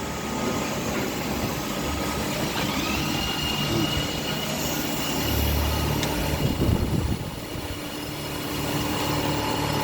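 CNC lathe running a thread-cutting cycle on a steel drill rod adaptor. A high whine rises in pitch about three seconds in and then holds steady, over a low machine hum.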